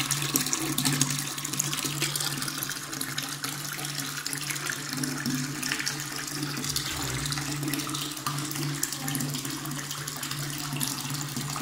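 Tap running steadily, its thin stream splashing into a washbasin already full of standing water, over a steady low hum.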